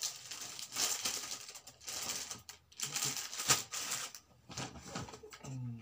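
Clear plastic gift packaging crinkling and rustling as it is handled, in uneven bursts with a few sharper crackles. The loudest crackle comes about three and a half seconds in.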